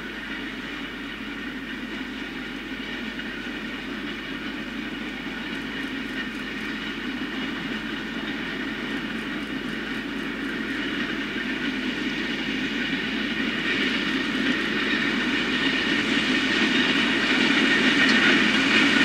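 Green John Deere tractor with a front hopper, pulling a tine harrow and roller combination through rapeseed stubble. The engine drones steadily with a high whine over it, growing steadily louder as it comes closer.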